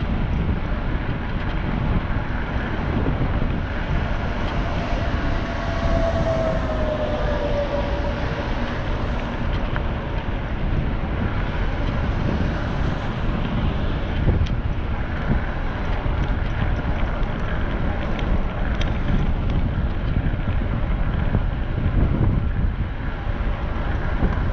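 Steady low rumble with wind buffeting the microphone, and a brief falling tone about six seconds in.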